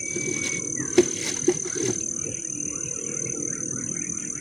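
Steady, high-pitched chorus of insects such as crickets, with a sharp click about a second in and a smaller one half a second later.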